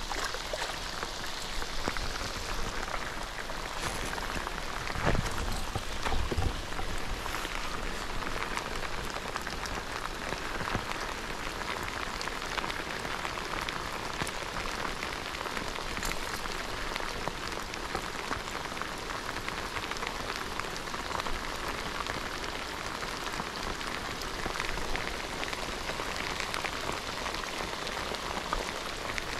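Heavy monsoon rain falling steadily, with countless small drop impacts. A few louder low thumps come about five to six seconds in.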